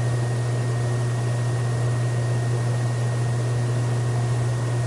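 A steady low hum with an even hiss over it, unchanging, with no footsteps or other events standing out.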